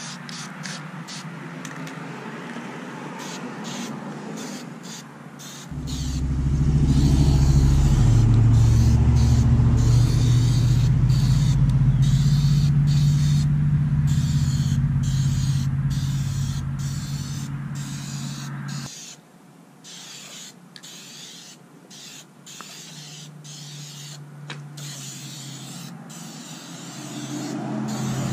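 Aerosol can of vinyl and fabric dye spraying onto a leather car seat in short hissing bursts with brief pauses. From about six seconds in until about nineteen seconds, a loud, low vehicle engine rumble drowns it out.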